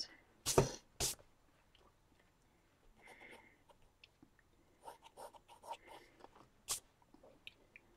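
Pencil sketching on sketchbook paper: faint, scratchy strokes that come and go. Two short, louder sounds about half a second and a second in, and another near the end.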